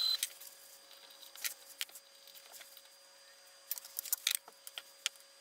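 Scattered light metallic clicks and clinks of tools and parts being handled while setting up a small milling machine, over a faint steady hum, with a short burst of clinks about four seconds in.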